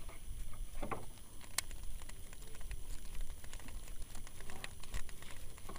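Faint, irregular ticks and rustles from handling a baitcasting rod and reel while retrieving a lure.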